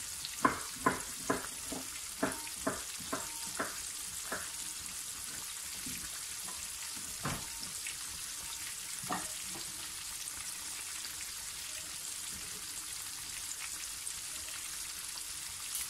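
Flour-breaded chicken pieces frying in hot oil in a pan: a steady sizzle. About ten sharp pops of spitting oil come close together in the first four seconds or so, and a couple more come later.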